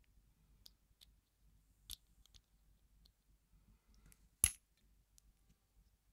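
Sparse small metallic clicks and taps from tools working on a lock cylinder during disassembly, with one sharp click about four and a half seconds in.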